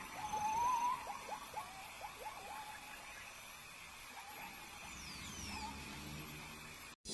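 A small animal's short chirping calls, about three a second, dying away after the first three seconds with a few scattered ones later; a faint high whistle glides downward about five seconds in.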